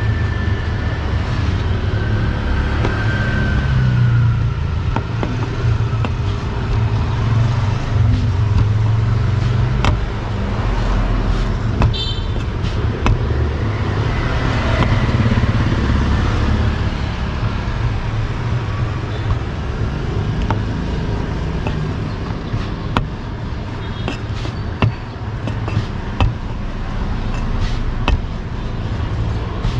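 Road traffic running steadily, a constant low rumble of passing vehicles, with a few sharp light taps standing out here and there.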